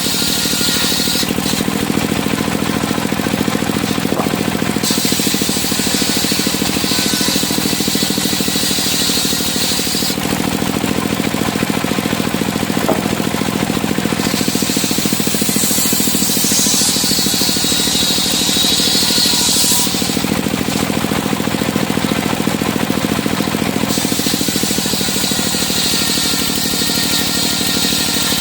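Engine-driven circular sawmill (serkel) running steadily, with the blade cutting timber in repeated passes. A high hiss lasts about four to five seconds during each cut, with pauses of about four seconds between cuts.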